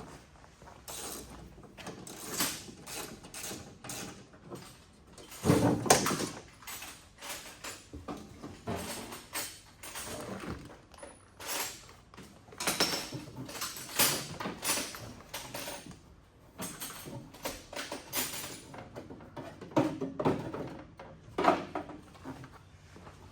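Irregular clicks, knocks and scraping of hand tools and metal parts as a car's interior is being dismantled, with a louder knock about six seconds in and others near the end.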